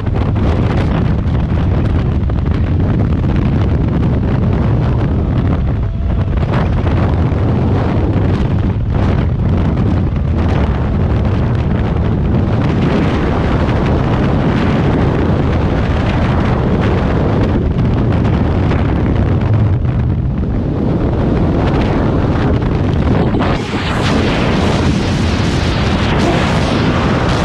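Rushing freefall wind buffeting a hand-held action camera's microphone during a tandem skydive: a loud, steady roar heaviest in the low end. About four seconds from the end it turns hissier.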